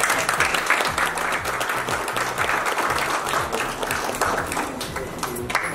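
Audience applauding: dense, steady hand clapping.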